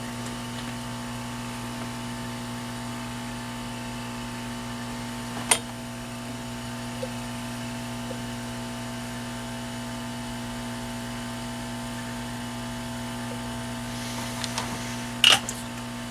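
Steady electrical hum of bench equipment, with several fixed tones, broken by a sharp click about five seconds in and a few small clicks and knocks near the end.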